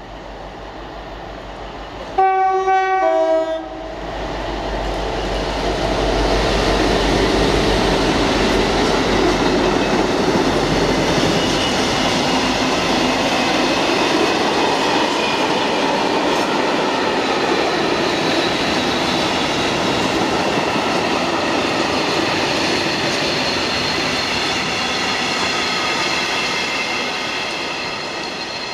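A Class 60 diesel locomotive sounds its two-tone horn about two seconds in, a short high note then a lower one, and then passes with its engine running. A long train of covered freight wagons follows, rolling by with a steady rumble and clatter of wheels over the rail joints, with high ringing tones building in the later part.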